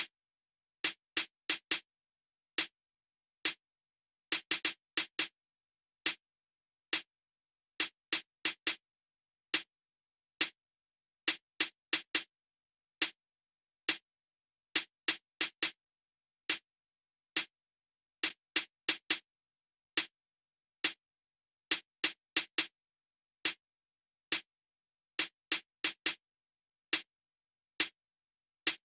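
Single sampled snare drum hits played through a Waves H-Comp compressor: short, dry strikes with little bass, about one a second at uneven spacing and sometimes two close together, with silence between them.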